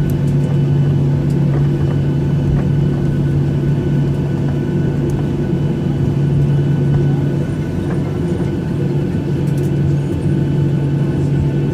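Steady cabin drone inside a Boeing 737-800 rolling on the ground after landing: a constant low hum with fainter steady whines above it, unchanging in level.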